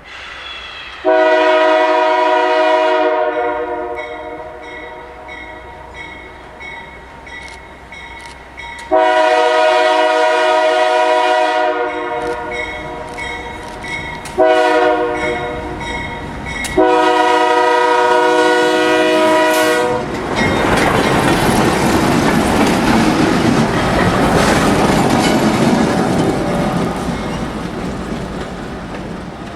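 Diesel locomotive air horn blowing two long blasts, a short one and a long one, the standard signal for a grade crossing. Then two diesel locomotives running light pass close by with engine and wheel noise on the rails.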